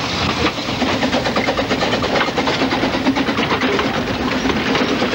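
Narrow-gauge double Fairlie steam locomotive hauling a train past at close range: rapid exhaust beats mixed with the clatter of wheels over the rail joints.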